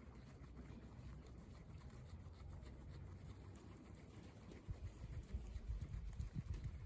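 Guinea pigs chewing fresh grass: faint, quick crisp crunching and nibbling, with low muffled bumps over the last two seconds.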